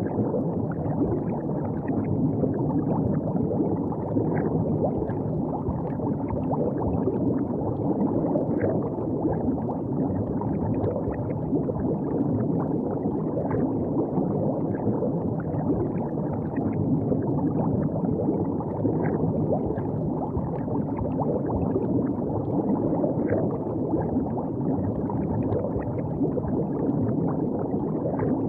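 River water flowing and gurgling steadily along the bank, with many small splashes throughout.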